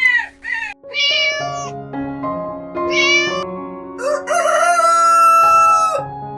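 Animal calls over steady background music: short pitched calls about a second and three seconds in, then a longer, rougher call from about four to six seconds.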